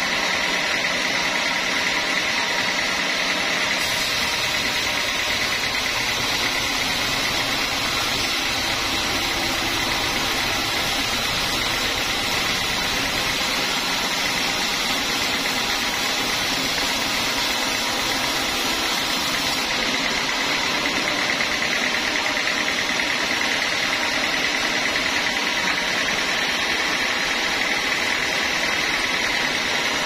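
Band sawmill blade cutting lengthwise through a teak log, the saw and its drive running steadily with a constant high-pitched whine over the machine's hum.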